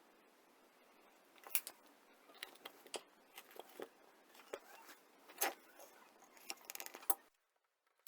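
Irregular light clicks and taps of small hard objects being handled, over a faint hiss; they stop a little before the end.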